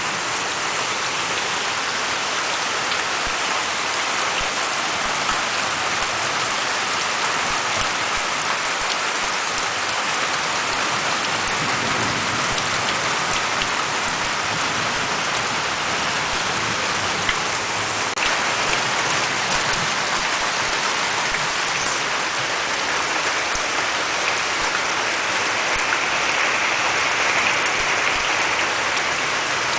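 Steady heavy rain falling and pattering on surfaces, a dense even hiss with occasional single drops ticking.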